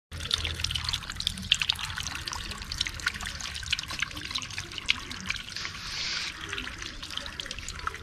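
Water trickling and splashing down a stacked-stone garden waterfall into a small pond, a steady dense patter of many small splashes.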